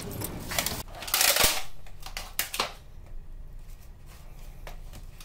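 Thin plastic shopping bag rustling and crinkling in a run of loud bursts for the first two and a half seconds, then quiet room tone with a single light click near the end.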